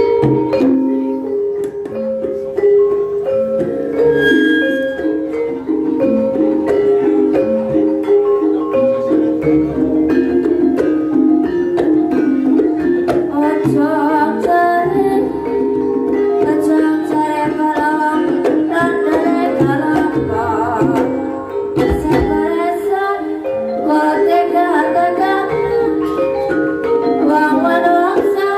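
Banyumasan gamelan music for the ebeg dance: tuned mallet percussion playing steady interlocking patterns, with a singer's voice joining in around the middle.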